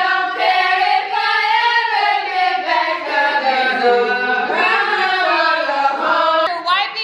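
A group of women singing a song together, their voices holding long notes and sliding up and down in pitch.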